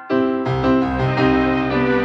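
Background music: a keyboard melody in steady held notes, with a lower bass line coming in about half a second in.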